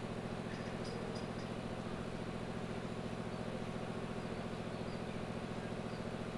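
A steady low droning hum with a fast, even pulse, with a few faint, short, high chirps about a second in.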